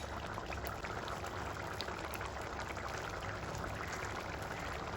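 Pan of octopus keema simmering uncovered, a steady bubbling and light crackle as the excess water boils off.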